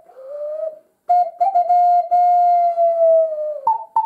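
A small hand-held clay whistle of the ocarina kind, blown. It plays a short soft note gliding upward, then a long clear held note that sags slightly in pitch, and ends with two brief higher notes.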